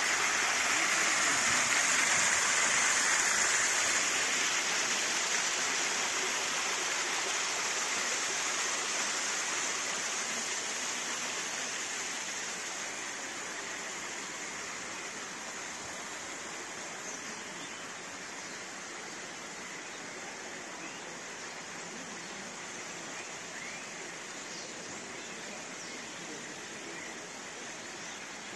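Small artificial waterfall splashing over rocks: a steady rush of water, loudest in the first few seconds and then slowly fading.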